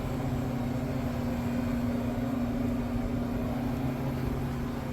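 Steady low electrical hum of a refrigerated drink vending machine's cooling unit, an even drone with a constant low tone.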